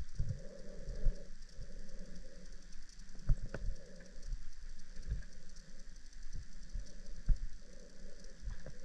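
Underwater drone's running sound: irregular clicks and knocks, with a hum that cuts in and out in stretches of about a second over a faint steady whine.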